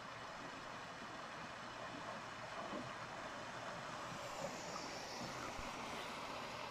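Faint, steady drone of a motorboat passing on a lake.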